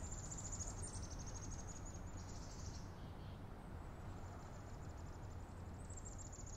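A high, rapid insect trill, cricket-like, that breaks off about three seconds in and starts again about a second later, over a low steady rumble.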